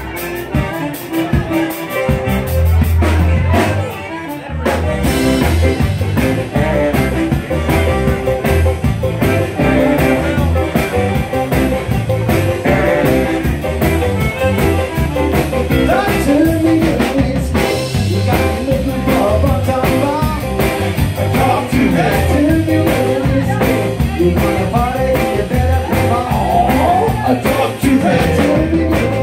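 Live band playing upbeat dance music with two saxophones, a button accordion, guitars and a drum kit, with a singer's voice in the mix. The music dips briefly about four seconds in, then comes back in full.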